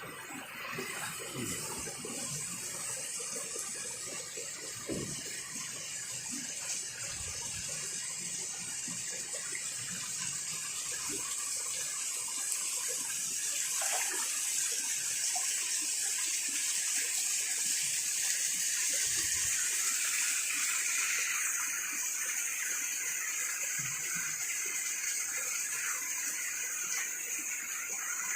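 Steady rush of flowing water, a continuous hiss with a few faint knocks and splashes scattered through it.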